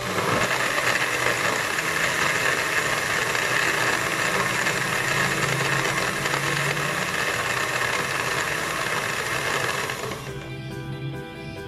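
Electric countertop blender running at speed, blending a mango shake with a steady whirring hum, then switched off about ten seconds in. Background music plays underneath and carries on after the blender stops.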